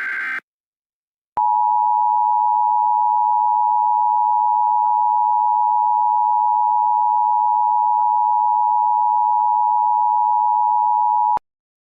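The tail of an Emergency Alert System SAME data burst, a harsh buzzing warble that stops just after the start. About a second later the EAS attention signal starts: a loud, steady two-tone tone of 853 and 960 Hz held for about ten seconds, then cut off abruptly. It marks the start of an alert.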